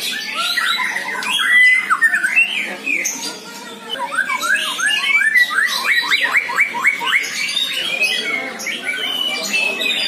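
Chorus of many caged songbirds singing at once at a kicau bird-singing contest: dense, overlapping whistles, chirps and sharp calls. It eases briefly about a third of the way in, then one bird runs into a fast series of repeated sweeping notes, about four or five a second.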